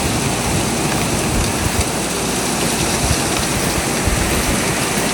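Strong blizzard wind blowing, a steady loud hiss with irregular low buffeting on the microphone.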